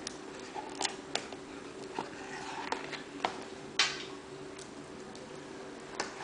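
Handling noise of an Apple USB SuperDrive being lifted out of its box tray and turned in the hands: scattered light clicks, taps and rustles of the drive and packaging, the loudest knock a little before four seconds in, over a steady faint hum.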